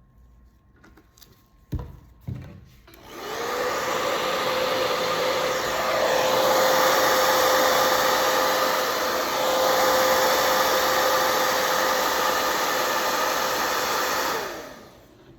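Two sharp knocks, then a hair dryer runs for about eleven seconds, blowing steadily. Its motor whine rises to a steady pitch as it spins up and falls away as it is switched off.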